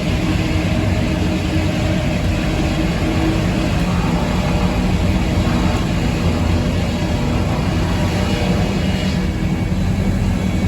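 Circular sawmill running steadily, its spinning saws and machinery giving a constant drone with a steady low hum.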